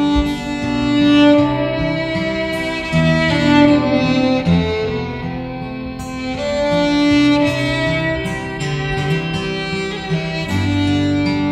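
Violin playing a slow melody over strummed acoustic guitar accompaniment, an instrumental passage between the sung verses of a Swedish folk song (visa).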